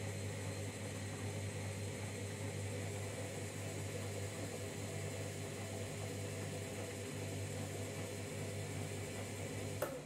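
Candy Grand'O Vita washing machine heating the water to 90 degrees on an empty boil wash: a steady low hum with an even hiss. A sharp click comes near the end, after which the sound cuts off.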